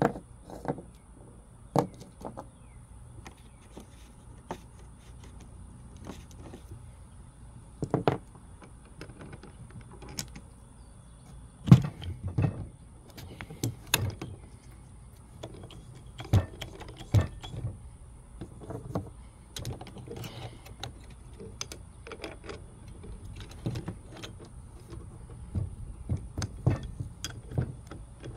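Irregular metallic clicks, clinks and knocks from handling the cable, crimping sleeves and hydraulic lug press tooling, with a loud knock about 12 seconds in and a run of knocks near the end, over a steady low hum.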